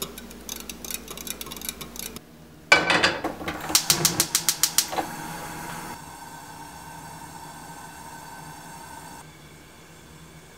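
Wire whisk beating eggs and chopped broccoli in a glass measuring jug: quick clicking strokes against the glass, lighter at first and then louder and faster for a couple of seconds. A steady hiss follows for about four seconds from a lit gas stove burner.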